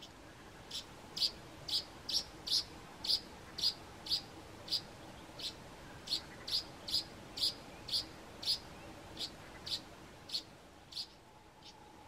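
Speckled mousebird calling a steady series of short, high notes, about two a second, that spread out and fade near the end.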